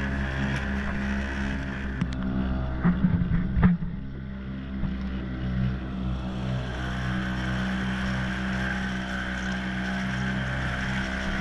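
Mercury outboard motor on an inflatable dinghy running at a steady speed, with water rushing past the hull. A few sharp knocks and splashes about three to four seconds in.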